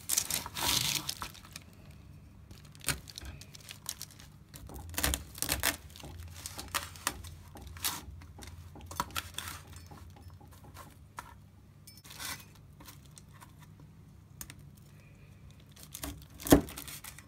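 Kitchen knife cutting through a slab of still-soft mixed nut brittle on baking paper: irregular crunching and crackling of nuts and candy with paper rustling, and a sharp knock near the end as the blade comes down.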